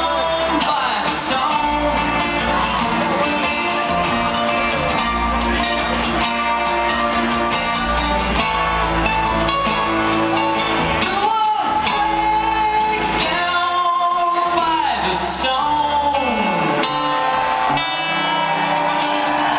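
Live bluegrass string band playing: plucked acoustic strings with long held notes and singing, with the echo of a large concert hall.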